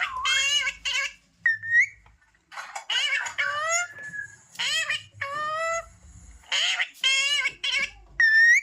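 Pet parrot making speech-like chatter in short repeated bursts with a high, bending pitch, its first attempts at talking. A short rising whistle comes twice, about one and a half seconds in and near the end.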